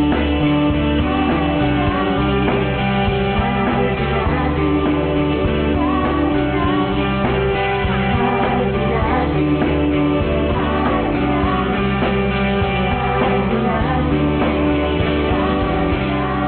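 Music with singing, playing without a break.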